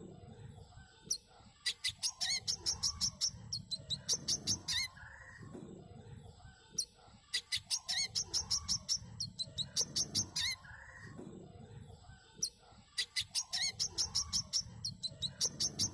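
Brown-throated sunbird (manggar, kolibri kelapa) singing: three bursts of rapid, high-pitched chirps, each about three seconds long at roughly five notes a second, with softer lower notes between the bursts.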